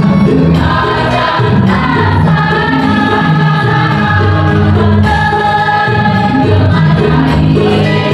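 Mixed choir of women and men singing in several parts, holding long sustained chords that change every second or two.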